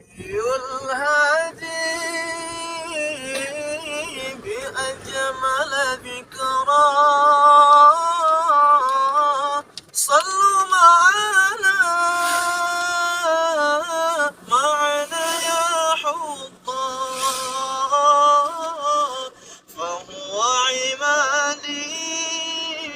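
A man's solo voice chanting a melody in a loud, ornamented style: long held notes with wavering turns, broken by short pauses for breath.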